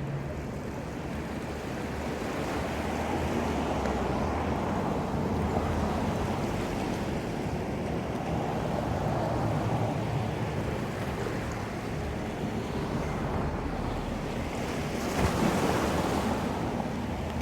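Ocean surf washing ashore, rising and falling in swells, with the loudest wave breaking near the end.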